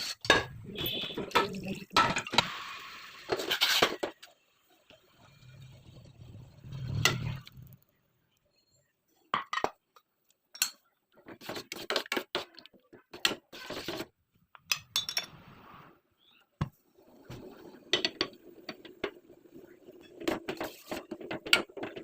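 Pots, dishes and metal utensils clinking and knocking, in scattered short strikes with brief pauses between them.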